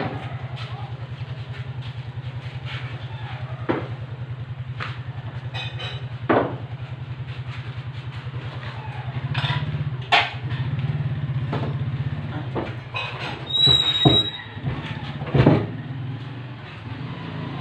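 A white plastic table and the things on it being handled and moved on a concrete floor: scattered knocks, clatters and a short high squeak of a leg scraping, the loudest knock near the end. A steady low hum runs underneath throughout.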